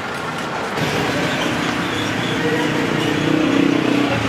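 Street traffic noise with a vehicle engine running, getting louder toward the end, and people's voices.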